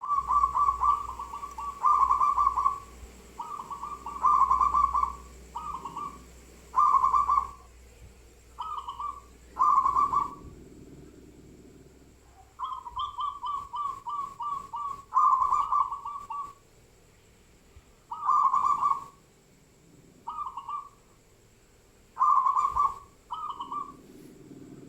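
Repeated calls of the bird known locally as kacor: short bursts of fast, stuttering notes at one mid pitch, each under a second long, coming every second or two with pauses between.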